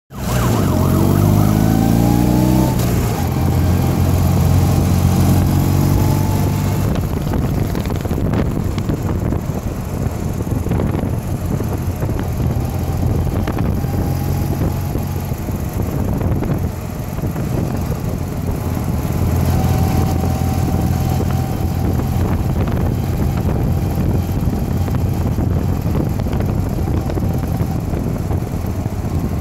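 A procession of classic-style motorcycles riding past at low speed, engines running continuously. In the first few seconds one engine revs up with a rising pitch, then settles into steady running.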